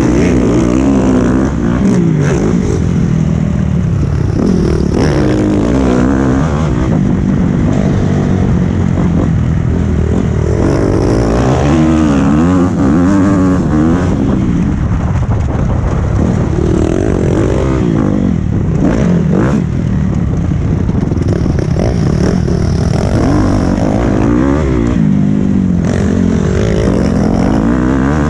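Honda 250 four-stroke motocross bike engine heard from on the bike while riding, revving up and falling back again and again as the throttle is opened and closed through the gears.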